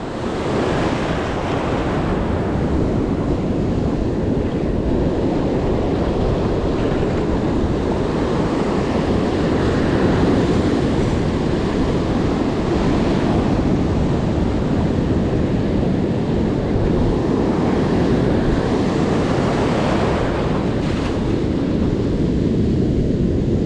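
Ocean surf breaking and washing up over the sand in a steady wash, with wind noise on the microphone.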